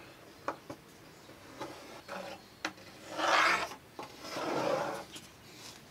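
Pencil scraping along the wooden edge of a table cutout beneath a plywood board, tracing its outline: a few light ticks, then two longer scratchy strokes about three and four and a half seconds in.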